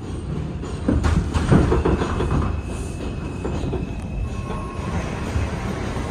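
R142 subway train running, heard from inside the car: a steady rumble of wheels on rail, with a run of clicks over rail joints about one to two and a half seconds in. A faint high-pitched tone is heard for a few seconds in the middle.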